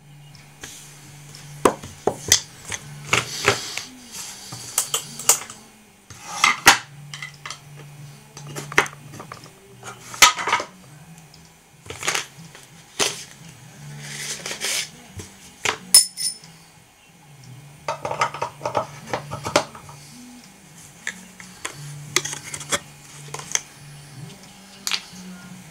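A VG10 damascus kitchen knife (Ikea Slitbar) drawn along the ceramic rods of a Spyderco TriAngle Sharpmaker. Irregular scraping strokes come with sharp clicks and clinks of steel on ceramic.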